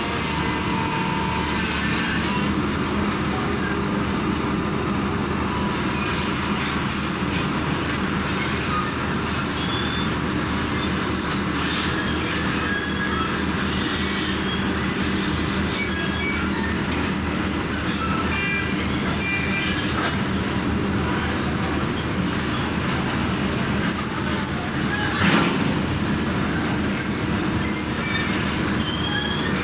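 Stick (arc) welding: the electrode arc crackling and sizzling steadily over the hum of the welding machine, with one sharp knock about 25 seconds in.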